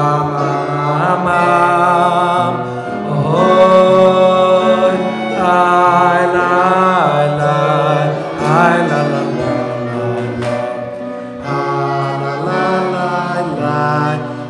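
Male singing of a Shabbos table song (zemer): a slow melody of long held notes that rise and fall.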